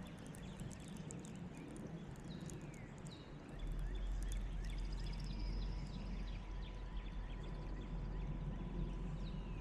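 Outdoor ambience with many short bird chirps. About three and a half seconds in, a steady low rumble sets in and stays.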